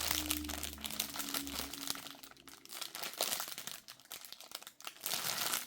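Plastic packaging crinkling and crackling irregularly as it is handled and unfolded.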